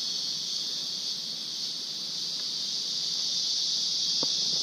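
Steady, high-pitched insect chorus, a continuous drone with no breaks.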